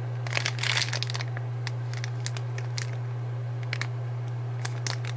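Plastic booster-pack packaging crinkling and clicking in the hands: a short burst about half a second in, then scattered light crackles, over a steady low hum.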